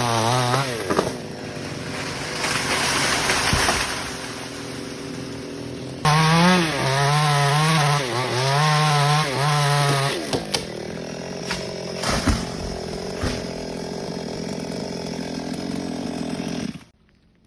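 Small two-stroke chainsaw running at high revs and cutting teak branches, its pitch wavering as the chain loads in the wood. It drops to a steadier, lower run and cuts off suddenly near the end.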